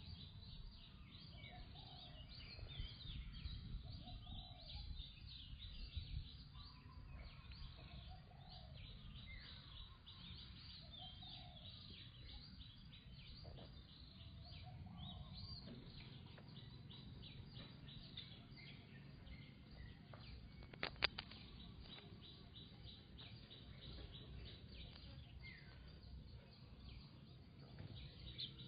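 Birds chirping over a low, steady background rumble, with a sharp click about three-quarters of the way through.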